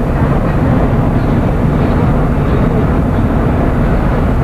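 Steady road noise heard inside a moving car: engine and tyre rumble at cruising speed.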